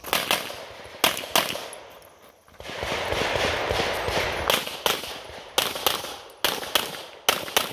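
Pistol shots from a 9 mm Canik METE SFT Pro: a string of fast shots, mostly in quick pairs. Between the early shots and the later ones there is a stretch of about two seconds of steady noise with no shots.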